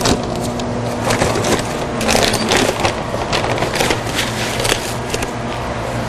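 Patterson Kelly stainless steel twin-shell V-blender running: a steady motor hum while the shell turns, with irregular clicks and rattles throughout.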